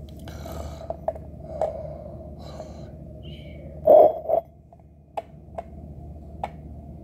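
A child's voice making breathy sleeping noises for a toy, with a louder double breath sound about four seconds in. A few short clicks of small plastic toys being handled.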